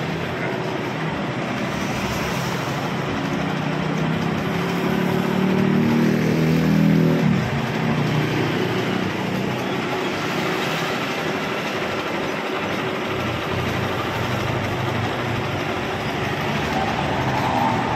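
Homemade carpet spin dryer, a used plastic barrel spun by a motor, running with a steady whirring rumble. About four seconds in, a low drone swells, peaks near seven seconds, then drops away suddenly, and the steady spinning noise goes on.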